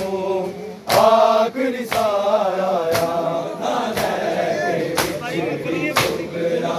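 Men chanting a Muharram lament (noha) together, cut by a sharp, even beat about once a second from a crowd of mourners striking their chests in unison (matam).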